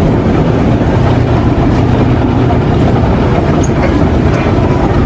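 Escalator running: a loud, steady mechanical rumble.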